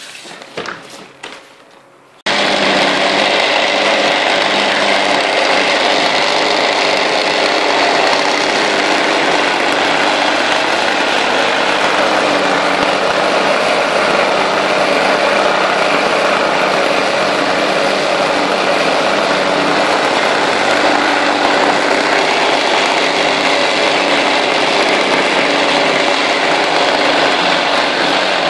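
Motorised rug-beating machine running steadily as it is pushed over a rug: a loud, even mechanical noise that starts suddenly about two seconds in.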